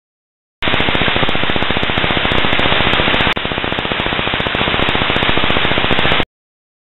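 Underwater hydrophone recording of a fish finder's sonar: a rapid, steady train of sharp clicks over a loud hiss. It starts suddenly, breaks off for an instant about halfway, and cuts off suddenly near the end.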